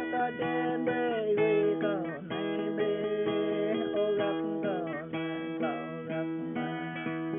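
Background music played on a plucked string instrument, its notes sliding and bending in pitch.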